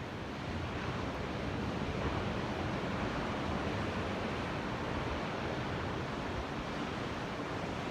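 Ocean surf: a steady wash of waves breaking and rolling in.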